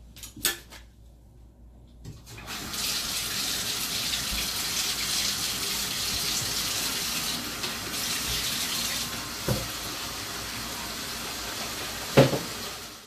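Bathtub tap turned on and running, water pouring steadily into the tub, coming in about two seconds in after a couple of light knocks. A sharp knock sounds near the end.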